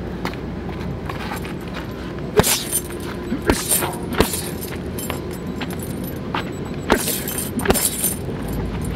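Boxing gloves striking a hanging heavy punch bag, several hits at an uneven pace with the heaviest about two and a half seconds in and near the seven-second mark, the bag's hanging chain jangling after the harder hits. A steady low rumble lies underneath.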